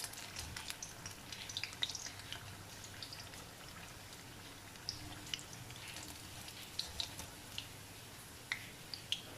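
Fritters of urad dal dosa batter deep-frying in coconut oil in a cast-iron kadai: faint, irregular crackles and pops from the hot oil.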